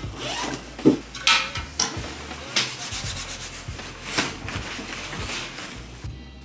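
Nylon jacket and padded coat rustling and swishing close to the microphone as the coat comes off and the arms are swung in a warm-up, in a series of uneven swishes.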